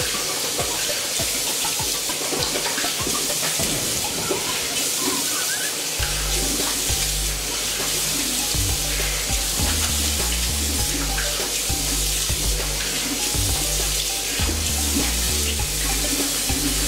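Bathroom sink tap running steadily while water is splashed onto the face to rinse off a face mask. Background music with a steady bass beat comes in about six seconds in and plays over the running water.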